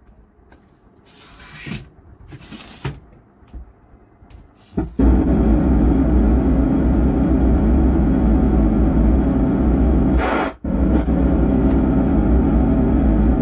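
A 4440-IC amplifier plays through its loudspeaker with a harsh, distorted, bass-heavy sound. It comes in loud about five seconds in after a few faint handling sounds, and cuts out for a moment about two-thirds through. The distortion is the torn-sound fault being repaired.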